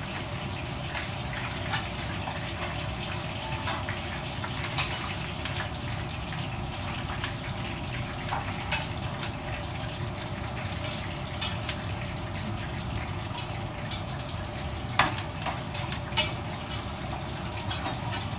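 A knife carving a roast duck in a metal tray: scattered clicks and taps of the blade on bone and tray, the sharpest about five seconds in and twice more near the end, over a steady background hum.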